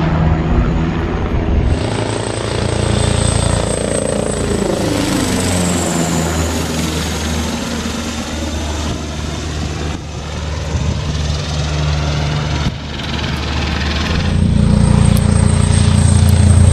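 Eurocopter Tiger HAD attack helicopter in flight: the steady beat of its rotors under the high whine of its turbines. The pitch falls about four to six seconds in, and the sound grows louder near the end.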